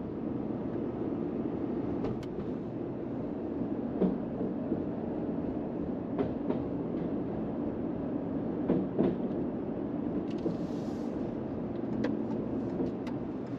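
Car driving across a steel truss bridge, heard from inside the cabin: a steady tyre and road rumble with scattered knocks as the tyres roll over the joints in the bridge deck.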